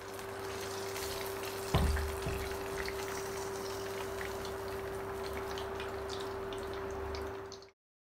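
Chicken fillet deep-frying in hot oil in a pan, sizzling with fine crackles throughout. A single knock comes about two seconds in, with a steady hum underneath.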